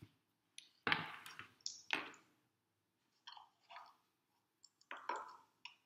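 Pen writing on paper: a series of short scratchy strokes, the loudest about one and two seconds in.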